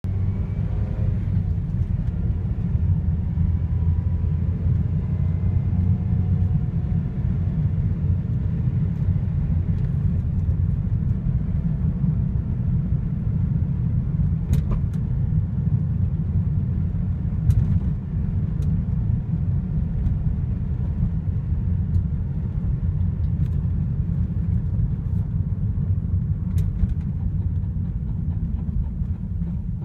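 A 2010 Mazda MX-5 on the move, with a steady low rumble of road and running noise. Over it, in the first several seconds, comes a faint wavering cringing sound from the brakes while braking: the sign of a warped front brake rotor.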